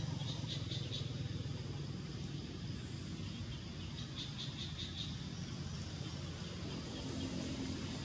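Outdoor ambience: a steady low rumble, with two short runs of rapid, evenly spaced high chirps, one about half a second in and one around four seconds in.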